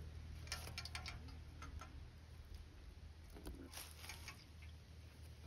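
Faint handling noise: a few quick clusters of light clicks and taps as the knife and wet sponge are handled over a plastic tub, over a steady low hum.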